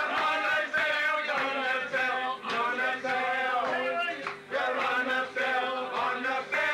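A group of men singing together, a sing-along with held, wavering notes.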